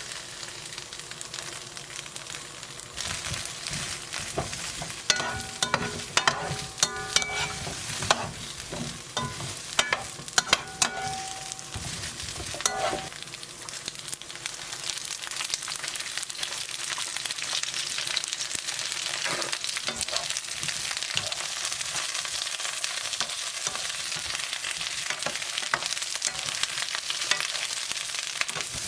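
Sliced eggplant sizzling in a frying pan as it is stirred. For the first half, a utensil knocks and clinks against the pan many times with short ringing tones. After that the sizzle runs on more evenly and a little louder.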